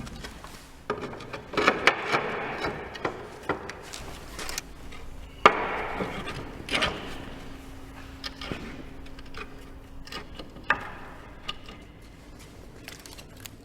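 Roof tiles being handled and fitted onto the battens: scraping and clattering with irregular sharp knocks, the loudest about five seconds in and another a few seconds before the end.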